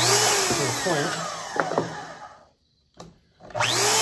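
Portable band saw motor winding down after being switched off, its whine falling in pitch to silence, then a click and the motor starting again, whining up quickly to full speed and running steadily.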